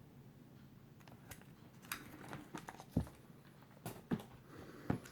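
Bagged and boarded comic books being handled: soft rustles of the plastic sleeves with a string of light taps and knocks, the loudest about three and four seconds in.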